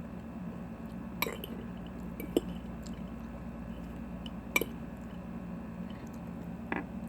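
A person eating kale salad: soft wet chewing and mouth sounds, with four sharp clicks spread through, over a steady low hum.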